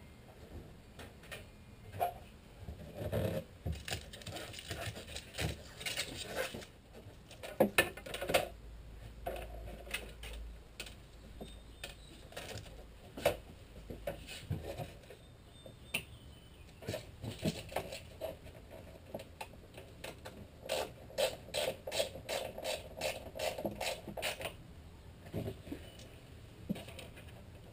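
Hand work on a wooden trailer frame: scattered clicks, taps and rubbing from handling tools and tape, with a quick regular run of clicks about three-quarters of the way through.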